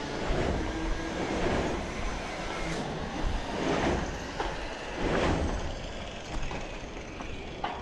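Road traffic going by, a steady rush of noise that swells several times as vehicles pass, with hissing surges like air brakes.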